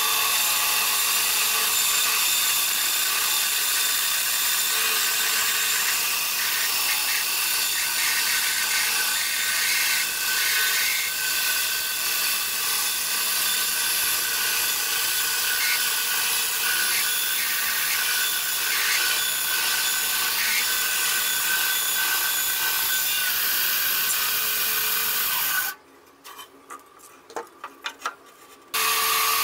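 Benchtop band saw running and ripping through a log section along its fence: a steady sawing hiss, strongest in the highs. About 26 s in the saw sound cuts off for roughly three seconds, with a few light clicks, then starts again at full level.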